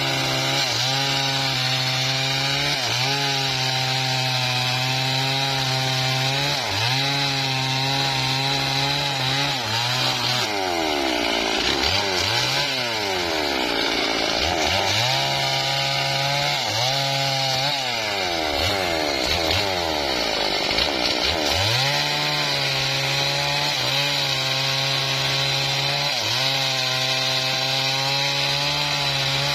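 Stihl two-stroke chainsaw cutting through a felled mahogany log at full throttle. The engine note dips and climbs back several times, with a run of quick falls and rises in pitch in the middle stretch.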